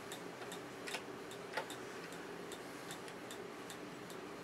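Faint, steady ticking, about three ticks a second, with two small sharper clicks about one and one and a half seconds in as screws are worked into the tape recorder's chassis.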